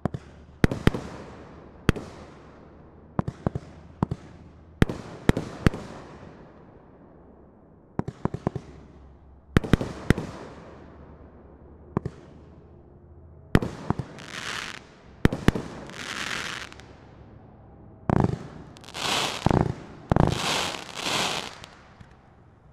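A 27-shot 500-gram aerial firework cake firing: a run of sharp shots, often in quick pairs, each with a short fading crackle after it. Near the end the shots come closer together, with heavier booms and long hissing swells as the finale bursts go off.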